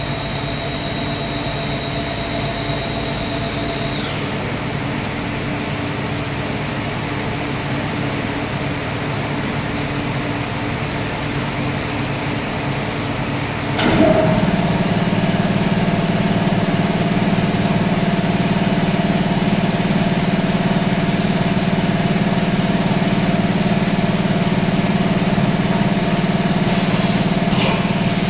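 Steady hum of CNC machining-centre machinery, with several steady tones. About halfway through a knock sounds and the hum steps up louder, and a few light clicks come near the end.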